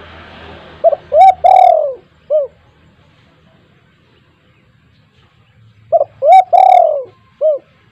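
Spotted dove cooing: two phrases of its rhythmic call, each of two short notes, a longer drawn-out note and a short final note, about four seconds apart.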